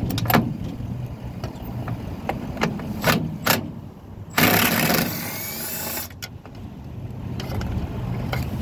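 Milwaukee cordless power tool with a 10 mm socket spinning for about a second and a half to back out a bolt, with a rising whine. Clicks of the socket and tool being fitted come before it, over a steady low hum.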